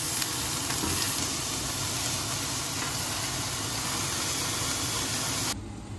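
Chicken sizzling in a frying pan on a camp stove, beside a pot of penne pasta at a rolling boil: a steady, dense hiss that cuts off suddenly near the end.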